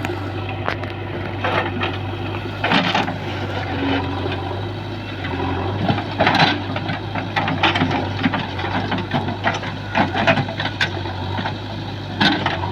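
JCB 3DX backhoe loader's diesel engine running steadily, with irregular clanks and rattles as the machine works the ground.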